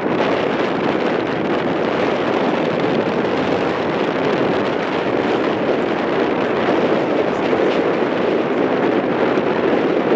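Wind blowing over the microphone: a steady, even rush with no breaks.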